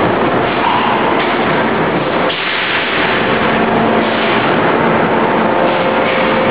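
Steady, loud industrial machinery noise from a robotic spot-welding cell, changing character about two and a half seconds in.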